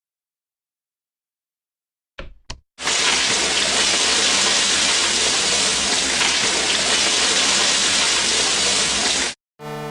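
Two quick knocks, then a steady rush of running water for about six seconds that cuts off abruptly.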